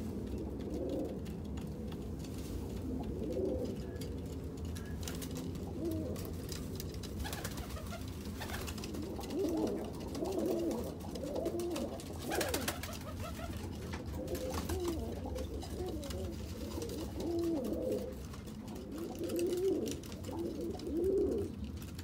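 Domestic pigeons cooing: a series of low, rolling coos, more frequent in the second half, with a single sharp tap about midway.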